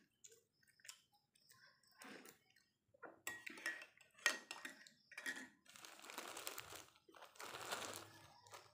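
Soft chewing and small clicks, then a metal spoon clinking and stirring in a ceramic coffee mug, with a short ringing tone. Near the end a plastic bread bag crinkles in two long rustles as a hand reaches into it.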